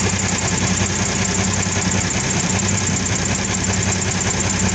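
1979 Peterbilt 359 semi truck's diesel engine idling steadily just after start-up.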